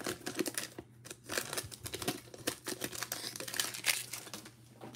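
Foil wrapper of a Donruss football card pack crinkling as it is pulled open, then the stack of cards being handled: an uneven run of crackles and rustles that dies down near the end.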